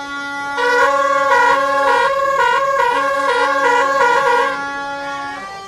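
Loud horns: one steady horn note held throughout, joined about half a second in by a second horn switching quickly back and forth between two notes like a two-tone siren, for about four seconds.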